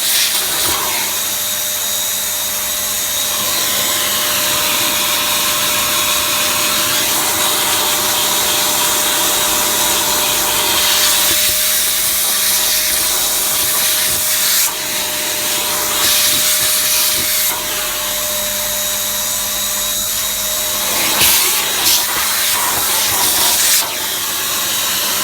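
CNC machine cutting under program control: a steady high whine from the spindle over loud cutting noise that changes in texture every few seconds as the tool moves through the work.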